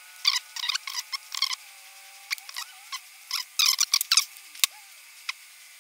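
Small metal parts of a model nitro engine's carburetor clicking and clinking in irregular clusters as it is taken apart by hand with a small tool, with a few short squeaks in between.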